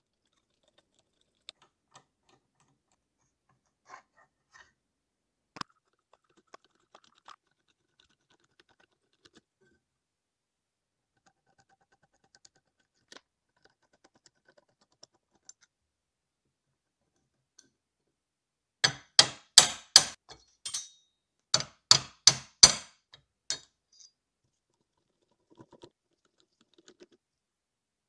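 Small metallic clicks and taps of hand tools working screws and nuts on old lathe parts. About two-thirds of the way through comes a run of about ten sharp, loud knocks, then a few faint clicks.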